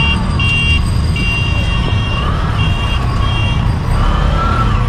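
Low rumble of wind and road traffic heard from a moving bicycle, with a delivery motorcycle running close alongside. Over it comes a run of high electronic beeps of uneven length, which stop about three and a half seconds in.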